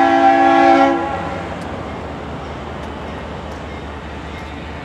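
Leslie RS3L three-chime air horn on a GE Dash 8-40CW locomotive sounding a held chord that cuts off about a second in: a grade-crossing warning. A steady low rumble and noise follow as the train approaches.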